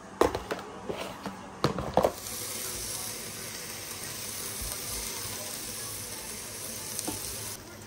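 A few sharp knocks and clatters in the first two seconds. Then steak strips sizzle steadily in a frying pan as they are lifted out with tongs.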